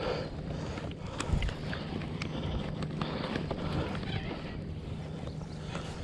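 Irregular clicks and knocks from rod, reel and kayak over a steady low hum, with one louder knock about a second and a half in, while a hooked striped bass is played at the side of the kayak.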